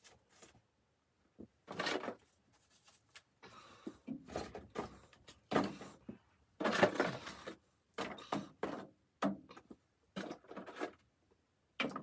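Irregular handling noises: rustling and scraping in short bursts with a few sharp knocks, stopping and starting every second or so.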